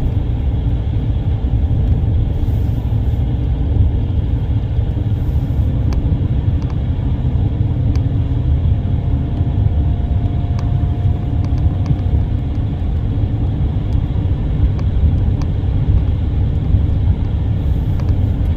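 Steady low rumble of a vehicle moving along the road, with a few faint light ticks.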